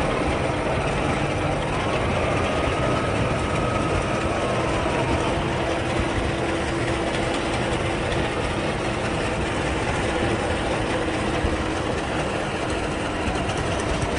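Semi-truck driving on the highway with metal dragging and grinding on the pavement, a steady loud scraping rumble. A faint squeal rises in pitch a little after a second in, holds, and falls away around five seconds.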